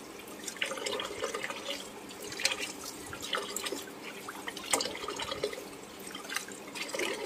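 Water splashing and dripping in a basin as crabs are washed by hand, lifted out of the water and dunked back in, in irregular splashes.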